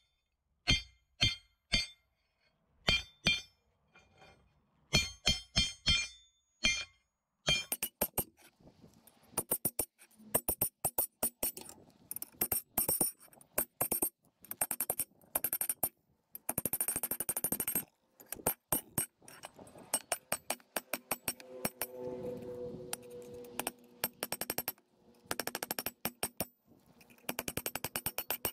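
Hammer striking sheet metal folded over a metal rod on a concrete block: sharp, ringing metallic clinks. Spaced blows about two a second at first, then from about eight seconds in a fast, steady run of taps.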